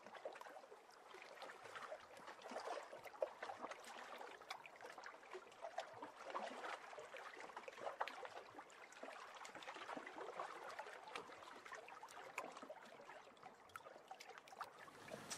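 Faint, gently moving water, with many small lapping splashes and drips.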